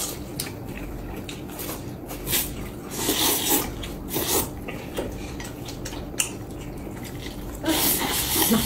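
Noodles being slurped from a bowl in several short bursts, the longest near the end, with chopsticks clicking against porcelain bowls.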